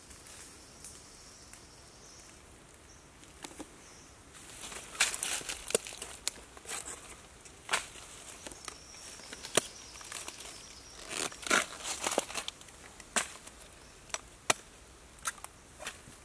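A machete cutting and breaking apart a head of cabbage: an irregular string of sharp, crisp cracks and snaps, loudest about five seconds in and again around eleven to twelve seconds.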